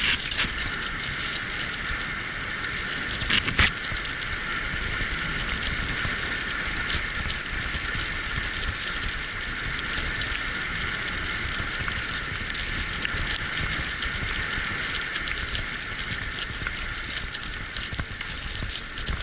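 A wheeled dog-racing rig rolling steadily over a forest trail behind a running dog team, its wheels and frame giving a continuous rattle and crunch. There is a sharp knock about three and a half seconds in.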